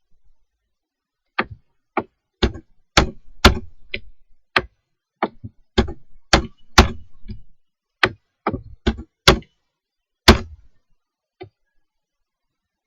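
Computer keyboard keys and mouse buttons clicking: a string of about eighteen sharp, irregularly spaced clicks, one or two a second, stopping a little before the end with a fainter last click. These are coordinate values being typed and confirmed with Enter.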